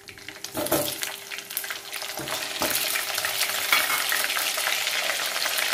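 Halved potatoes dropped one at a time into hot mustard oil in a steel kadai, a few soft knocks as they land, and the frying sizzle growing louder as more pieces go in.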